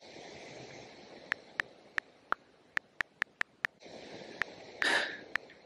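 Phone on-screen keyboard key-click sounds: about nine quick, irregular ticks as a name is typed letter by letter, then a few more. A short breath comes about five seconds in.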